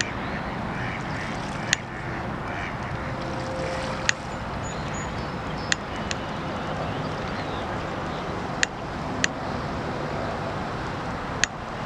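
Steady outdoor wind-and-water noise beside a pond, with faint waterfowl calls in the first couple of seconds and several sharp clicks scattered through it.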